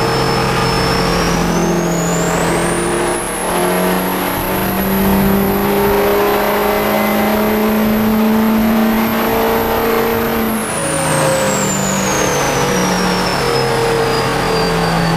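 Duramax 6.6-litre V8 turbodiesel pickup making a full-throttle pull on a chassis dyno. The engine runs hard under load with a high whine that climbs about two seconds in and holds for some eight seconds, then falls away as the throttle comes off and the truck and rollers wind down.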